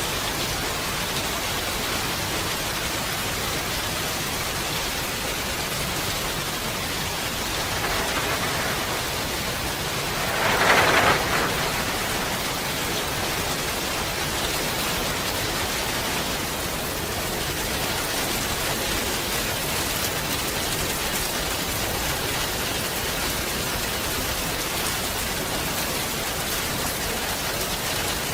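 Steady rain falling, an even hiss of many drops, with a brief louder rush of about a second roughly ten seconds in.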